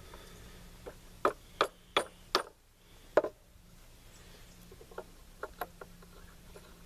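Small hammer tapping on metal gunsmithing parts: four sharp taps about a third of a second apart, a harder fifth strike, then a few lighter taps about five seconds in.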